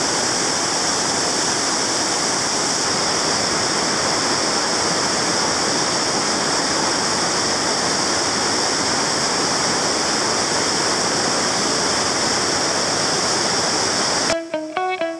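Waterfall: a steady rush of falling water. It cuts off abruptly near the end, and plucked guitar music begins.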